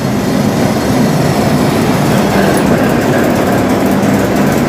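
Inland ship's inline multi-cylinder diesel main engine running steadily and loud, on a test run after an oil change to check for leaks.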